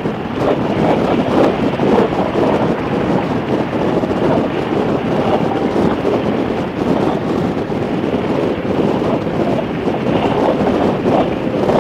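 Harley-Davidson motorcycle riding at road speed, heard as a steady rush of wind noise on the microphone.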